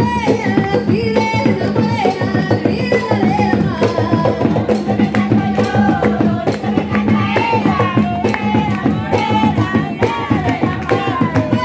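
Panamanian tamborito music: a steady beat of hand drums under sung vocals.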